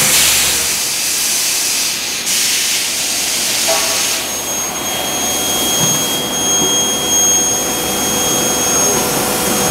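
Medium-frequency induction bar-heating forging machine running: a loud, steady hiss that dips briefly about two seconds in, joined about four seconds in by a thin, steady high whine.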